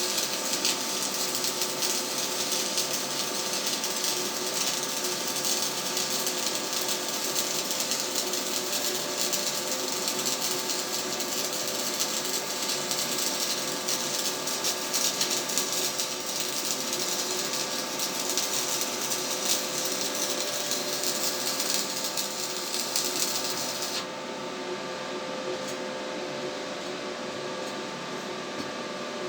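Stick-welding arc from a generic electrode at 80 amps, a steady dense crackle and sizzle as the bead is laid. It stops suddenly about 24 seconds in, leaving the welding machine's steady hum.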